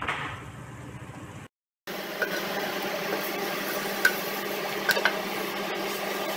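Masala sizzling in a metal kadhai while a wooden spatula stirs and scrapes through it, with a few sharp clicks of the spatula on the pan. The sound cuts out for a moment about one and a half seconds in, and the sizzle is louder after it.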